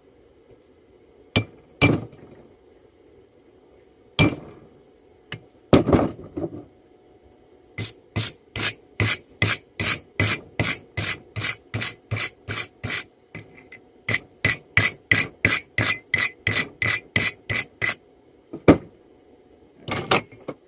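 Blacksmith's hammer driving a punch into a hot railroad spike on the anvil: a few separate blows, then two long runs of quick, ringing blows at about three a second with a short pause between them. A faint steady hum runs underneath.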